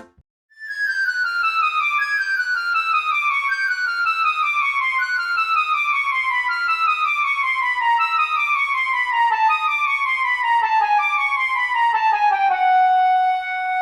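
Playful woodwind-like music: a long run of short notes stepping down the scale, settling on a held lower note near the end.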